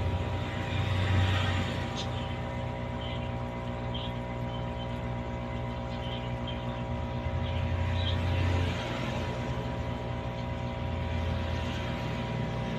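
Aquarium air pump humming steadily with a low buzz that swells now and then, and faint scattered pops from the bubbling air stone.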